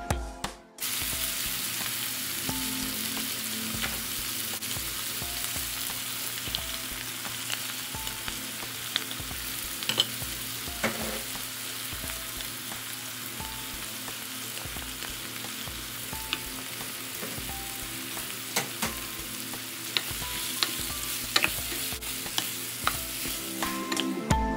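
Kung pao chicken stir-frying in a hot pan with a steady sizzle. A utensil clicks sharply against the pan every few seconds as it is stirred.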